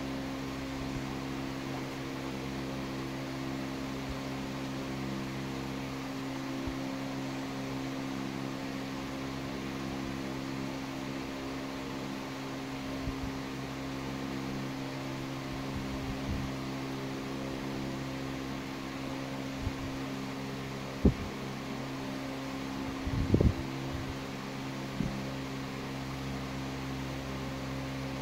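Steady machine hum with several held tones and a hiss beneath it. A sharp knock about three-quarters of the way in, then a brief cluster of low thumps a couple of seconds later.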